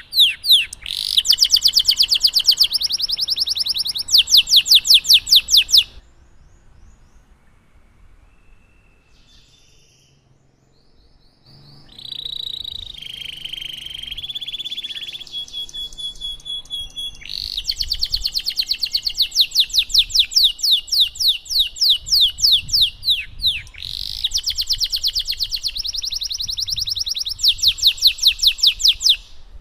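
Domestic canary singing long rolling trills of fast repeated notes, with a quieter gap of about five seconds near the middle before the song picks up again with held whistled notes and more trills.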